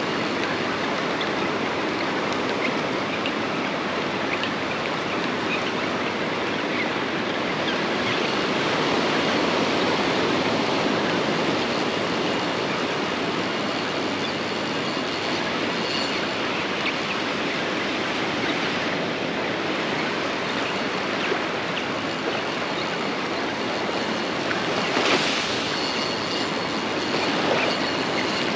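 Ocean surf washing steadily onto the beach, a continuous even rush of breaking waves, with one brief louder noise near the end.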